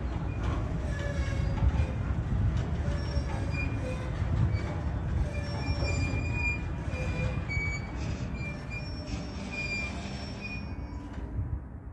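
Freight train's brakes squealing as it slows to a stop: a string of short, high-pitched squeals over the low rumble of the rolling cars. The squealing stops shortly before the end.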